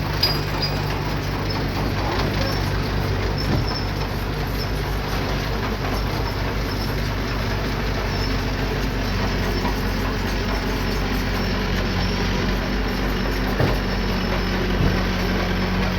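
Diesel engine of earthmoving machinery running steadily under work, with its pitch rising a little about halfway through. A few short knocks are heard over it.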